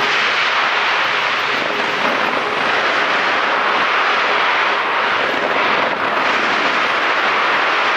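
Dense fireworks barrage launched from the Taipei 101 skyscraper, the many bursts running together into one steady, loud crackling rush.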